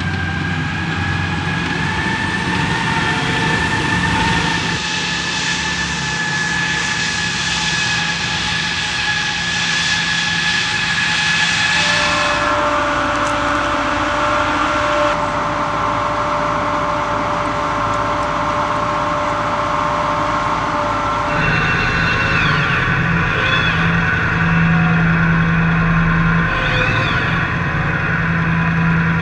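Tracked rocket launcher on a Bradley-derived chassis (M270 MLRS) driving: steady engine and track noise with a high, even whine, changing character abruptly several times.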